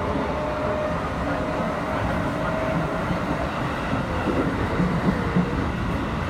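Keio 8000-series electric train running: a steady rumble of wheels and running gear with a faint steady whine, and a few slightly louder bumps near the end.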